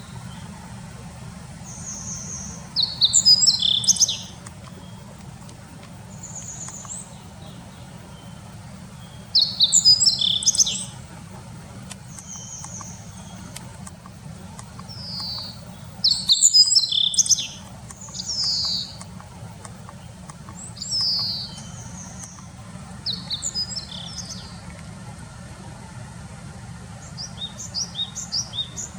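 Meadow buntings and Japanese tits calling: short bursts of quick, high chirping notes every few seconds, with single thin high calls between them. A steady low rumble sits underneath.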